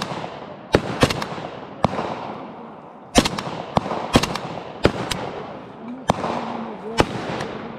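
AK-103 rifle (7.62×39 mm) firing single shots at irregular intervals, about a dozen in all, some in quick pairs, each shot followed by a long echoing tail.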